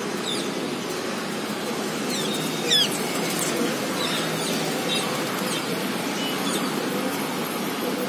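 Several short, sharp bird calls sweeping downward in pitch, the loudest and most clustered nearly three seconds in, over a steady low hum of city traffic.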